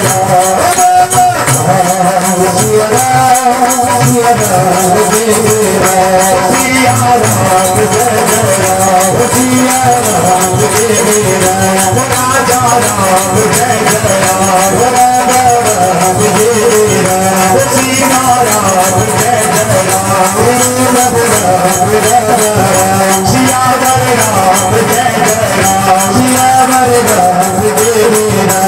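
Live devotional bhajan: a man singing a melodic chant through a microphone and loudspeaker, over a steady jingling, rattling hand-percussion beat.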